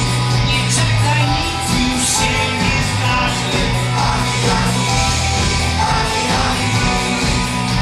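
Live rock band playing: electric guitars, bass and drums, loud and continuous, recorded from the audience in a large hall.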